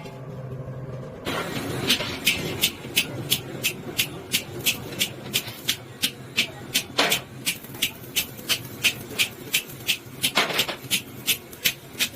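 Regular sharp strikes, about three a second, that start about a second in, with two heavier blows in the second half: rhythmic hammering.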